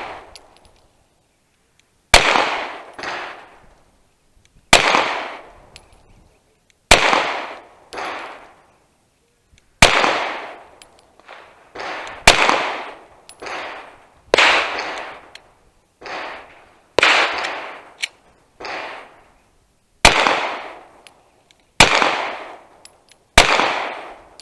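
Ten slow-fire shots from a Glock 43X 9mm pistol, spaced two to three seconds apart, each sharp report followed by a fainter echo.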